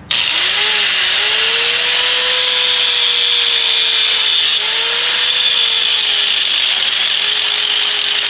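Angle grinder cutting into a Jeep Wrangler's rusted steel frame along a weld, starting abruptly and running steadily, its motor pitch dipping and recovering as the disc loads up in the cut.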